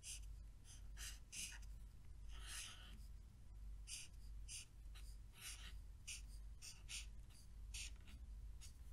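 Felt-tip marker writing on paper: faint, short scratchy strokes, about two a second, as block capital letters are drawn one stroke at a time.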